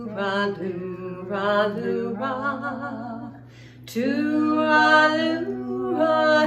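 Two women singing a cappella together in long held notes, in two phrases with a pause for breath about three and a half seconds in.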